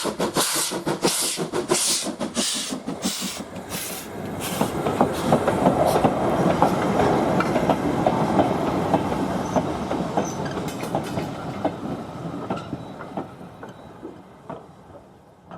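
Ivatt 2MT 2-6-2T steam tank locomotive working uphill: its exhaust beats come about twice a second for the first four seconds. They give way to a close run of wheel clicks as the train rolls past, fading steadily to the end.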